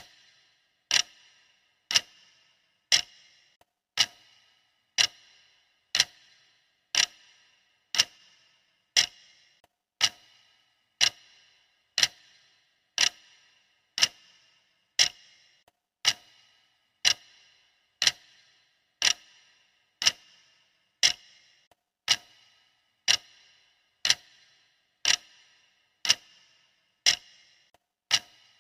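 Clock ticking sound effect: one sharp tick every second, each with a short metallic ring, perfectly regular.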